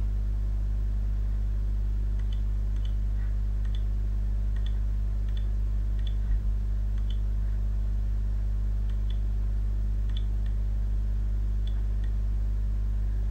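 Steady low electrical hum, with faint computer-mouse clicks at irregular intervals and a small thump a little past the middle.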